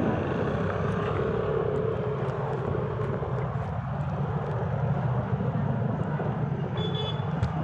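Steady low rumble of a car on the move, engine and road noise, with a brief high tone near the end.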